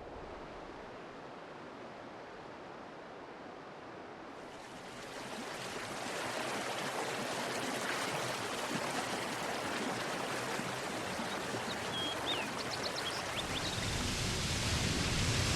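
Rushing river water: a steady, noisy roar that grows louder about five seconds in.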